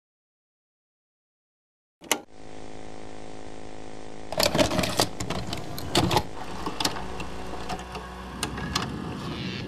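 Silence, then about two seconds in a click as a VHS tape starts playing, followed by steady tape hiss with a low hum. From about four seconds in, irregular crackles and pops of a worn, glitching tape break through the hiss.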